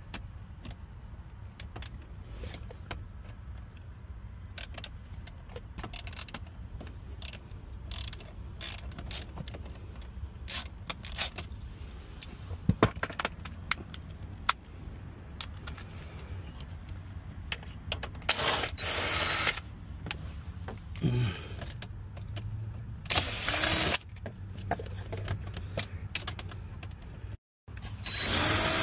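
Clicks and clinks of a socket ratchet and loose tools, then a DeWalt cordless drill running in short bursts of a second or two: twice about two-thirds of the way through, and again at the very end.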